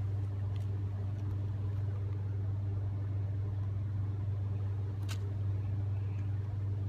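Rooftop HVAC equipment running with a steady low hum, and a single sharp click about five seconds in.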